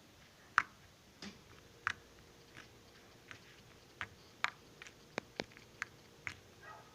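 Homemade slime squeezed and stretched close to the microphone, giving a run of irregular sharp little pops and clicks.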